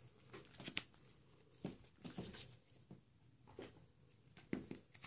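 Faint, scattered clicks and rustles of hands handling a hard plastic surprise egg, with several brief ticks a second or so apart.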